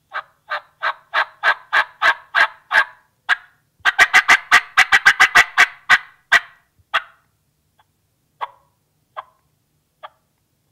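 Four-reed Lethal Injection diaphragm turkey call with smoke-gray latex, blown by mouth in hen-turkey yelps. A steady run of about ten notes is followed by a faster, louder string of notes, about seven a second, then a few soft notes spaced about a second apart.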